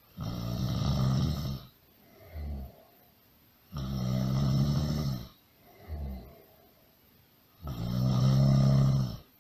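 Loud human snoring in a steady rhythm: three long snores about four seconds apart, each followed by a shorter, quieter breath out.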